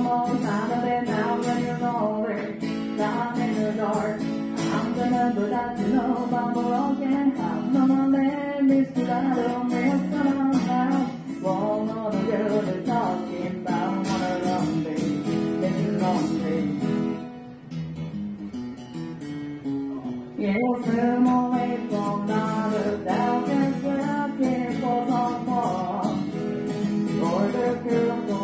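Background music led by guitar, with steady strummed and picked notes. It drops away for a couple of seconds about two-thirds of the way through, then comes back in full.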